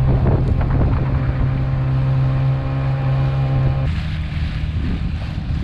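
Honda GX50 air-cooled four-stroke outboard running steadily at speed, pushing a SUP through rough water. About four seconds in, the engine's steady note drops away, leaving the rush of wind and water.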